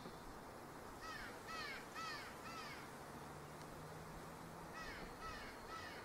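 Electronic bird scarer playing recorded bird distress and predator calls through its speaker: faint, harsh, crow-like caws about two a second, a run of four from about a second in and a run of three near the end. The calls are meant to frighten birds off ripening grapes.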